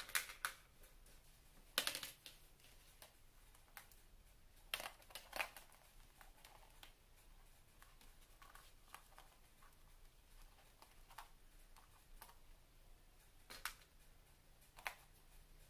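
Scattered light clicks and taps of small hard-shelled candies (M&M's) being picked out of a plastic bowl and set down on a plate, a few louder clicks among many faint ones.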